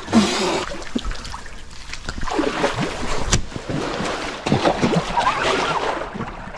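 Splashing and sloshing of shallow river water as men wade around a stranded bass boat and heave it over a log, with a few sharp knocks, the loudest about three seconds in.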